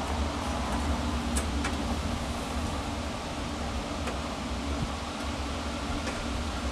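A steady low hum and rumble, with a few light metallic clicks of tongs working food on a small charcoal grill.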